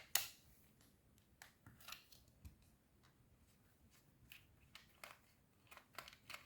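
Faint, scattered clicks and light scrapes of small plastic parts being handled while a tiny screw is worked out of an opened computer mouse, with a sharper click just after the start.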